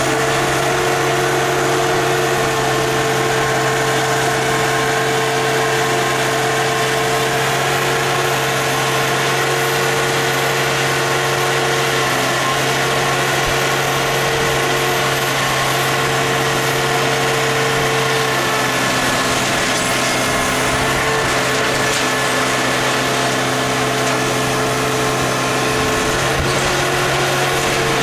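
Engine of an orange hydraulic grapple loader running steadily, with whining tones above it that drop out and come back as the boom and grapple work.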